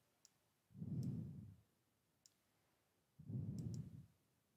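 Computer mouse clicking a few times as the Street View is stepped along the road. Between the clicks there are low, muffled puffs about a second long, coming every two and a half seconds or so.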